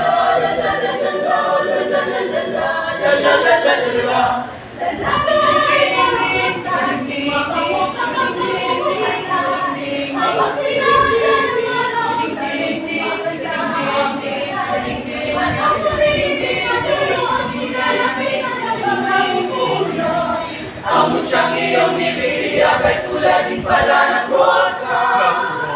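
Mixed choir of women's and men's voices singing a cappella in several parts, with a brief break between phrases about five seconds in and another about twenty-one seconds in.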